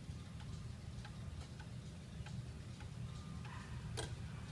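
Kienzle Westminster-chime wall clock ticking and clicking as its minute hand is pushed round toward the hour, with one sharper click about four seconds in.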